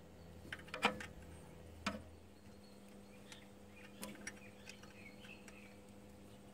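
Faint, irregular metallic clicks and taps of a spanner on a fitting at the alternator's vacuum pump as it is tightened. The sharpest click comes about a second in.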